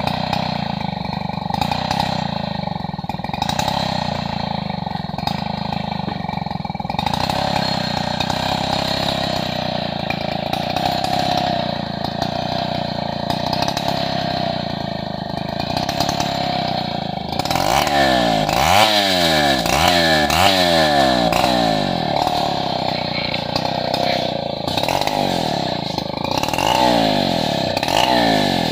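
Stihl 070 two-stroke chainsaw running steadily while ripping hardwood lengthwise. From about two-thirds of the way in, its engine speed rises and falls over and over, about once a second.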